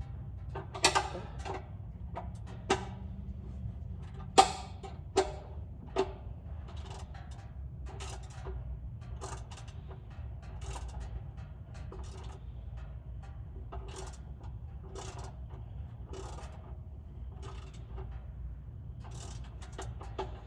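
Ratchet wrench clicking in repeated strokes while it loosens a fastener on the Jeep YJ. There are a few sharp, loud metallic clicks in the first six seconds, then lighter, steady clicking about once or twice a second.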